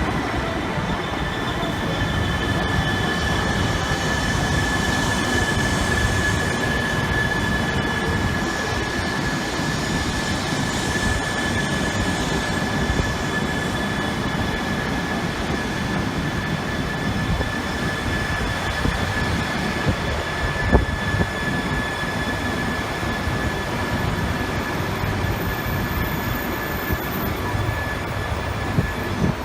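Shinkansen train on the line at the platform: a steady rumble with a high, steady whine held over it, and a couple of brief knocks in the later part.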